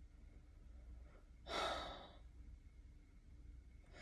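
A woman's heavy sigh: one breathy exhale about a second and a half in, over a low steady hum.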